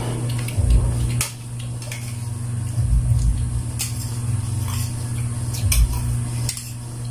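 Metal spoons clinking and scraping on ceramic plates and bowls during a meal: scattered sharp clicks, with a few dull low thumps and a steady low hum underneath.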